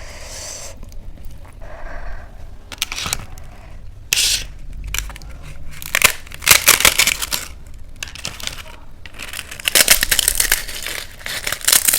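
Close-miked eating: crisp, crackly crunching bites and chewing in irregular bursts, the loudest about four, six and ten seconds in.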